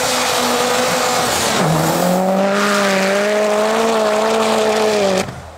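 Rally car engine running hard on a snow track over a rushing hiss of tyres and spray. Its note drops at a gear change about one and a half seconds in, then climbs slowly as the car pulls on. The sound cuts off suddenly near the end.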